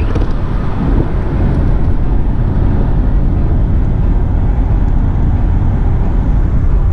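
Steady road noise of a vehicle driving, a dense low noise without distinct tones.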